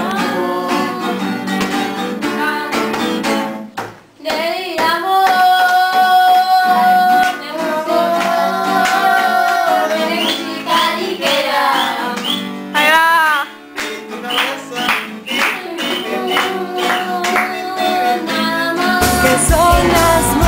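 A Spanish-language pop song with a singer holding long notes over the backing. The music drops out briefly about four seconds in.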